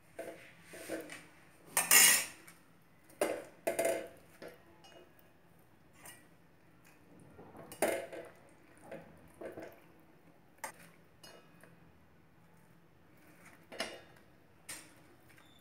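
Perforated steel slotted spoon knocking and scraping against a steel pan as fried pancakes are laid into sugar syrup: irregular clinks, the loudest about two seconds in.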